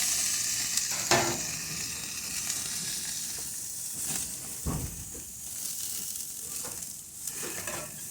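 Lard-smeared hamburger patties sizzling on a barbecue grill, a steady hiss with a few short knocks about one second in and again near five seconds.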